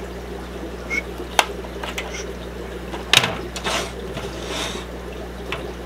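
Light clicks and knocks of clear-plastic aquarium box-filter parts being handled, the sharpest about three seconds in, over a steady low hum.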